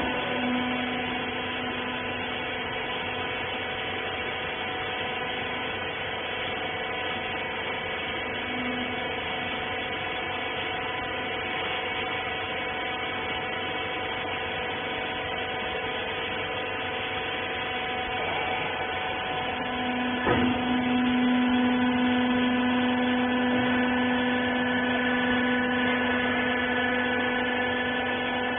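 Hydraulic rag baler's power unit running with a steady hum. A sharp knock comes about 20 seconds in, after which the hum grows louder and stays louder.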